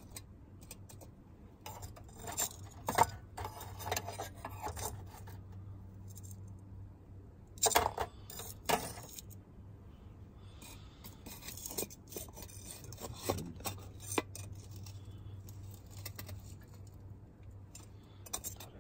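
Scattered light metallic clinks and scrapes in small clusters: a few about two to four seconds in, the loudest pair near eight seconds in, and more around thirteen seconds. A low steady hum runs underneath.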